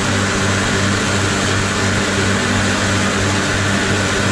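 Compressor-fed gas blow lamp on a brazing hearth burning at high flame: a loud, steady roar, with the air compressor's hum underneath.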